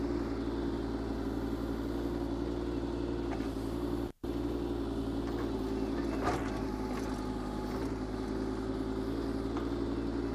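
Kubota K008-3 mini excavator's small three-cylinder diesel running steadily while the bucket digs a trench, with a short knock about six seconds in. The sound cuts out for a split second about four seconds in.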